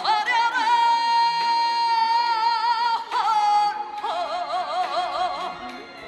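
Korean trot song playing: a long melodic note held with vibrato for about three seconds, then a shorter note and a wavering, ornamented line that fades near the end.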